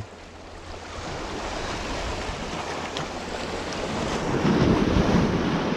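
Shoreline ambience of sea water washing with wind buffeting the microphone, the wind rumble growing louder near the end.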